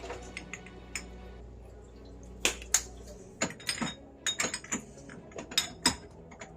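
Irregular clicks and clinks of kitchen utensils and seasoning containers handled over a stew pot, a dozen or so sharp knocks in the second half, over a steady low hum that stops about halfway through.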